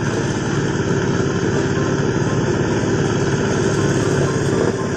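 Engine-driven corn sheller running steadily while corn cobs are fed into it: a loud, even mechanical din with a constant hum.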